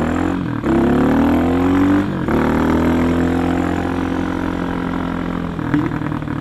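Kawasaki D-Tracker's 292cc single-cylinder engine, with a high-lift cam, FCR carburettor and Delta exhaust, pulling hard under acceleration. The pitch climbs, drops sharply at upshifts about half a second and two seconds in, then runs steady and eases slightly, with another brief dip near the end.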